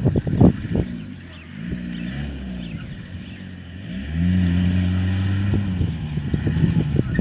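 Toyota Hilux pickup engine working off-road, its pitch rising and falling as it revs, with a loud steady pull for a second or two about four seconds in. A run of thumps in the first second and again near the end.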